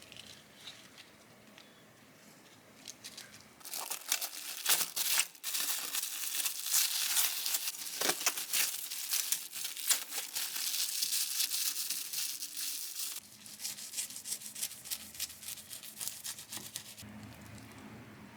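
Crinkly plastic being handled and crumpled: dense crackling from a few seconds in until about two-thirds of the way through, with lighter, scattered crackles before and after.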